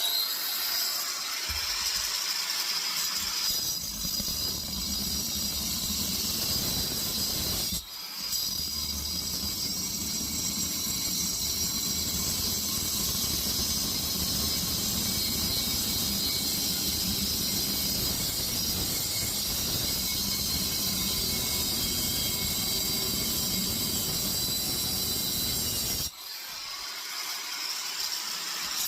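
Angle grinder with a worn cutting disc, running steadily and squealing as it cuts through a compressor's steel shell; it stops briefly about eight seconds in and cuts off a few seconds before the end.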